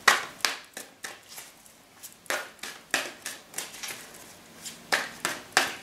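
Tarot deck being shuffled by hand: a run of short, irregular clicks of cards striking together, in three clusters near the start, around the middle and near the end.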